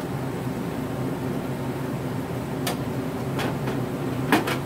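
Steady low hum over vegetables cooking in a wok, with a few sharp clinks of a metal spatula against the wok in the second half; the loudest clink comes just before the end.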